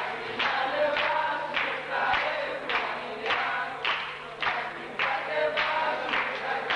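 A group of people singing together, with a regular pulse about twice a second, over a steady low hum.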